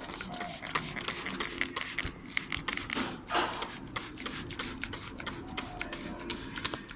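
Plastic trigger spray bottle being worked by hand: irregular plastic clicks and rattles from the trigger, with a short hiss of spray about three seconds in.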